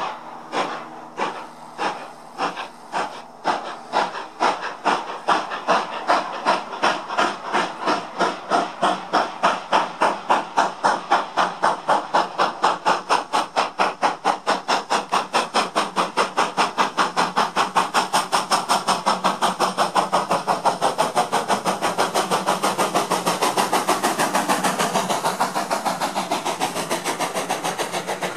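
GWR Modified Hall class 4-6-0 steam locomotive, a two-cylinder engine, starting a train away: its exhaust chuffs begin slow and quicken steadily into a rapid, even beat. The cylinder drain cocks are open, adding a steady hiss of steam.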